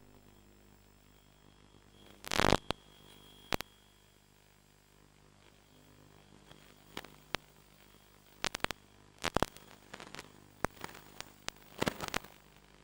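Faint steady electrical hum with scattered crackles and pops of radio static, the loudest about two seconds in and a cluster near the end.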